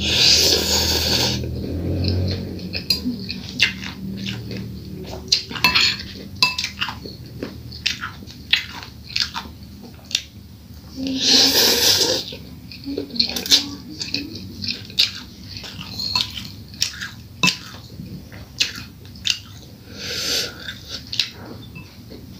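Close-miked eating of fried instant noodles: three loud slurps of noodle strands, at the start, about eleven seconds in and about twenty seconds in. Chewing and many sharp clicks of a metal fork and spoon against a bowl come between them.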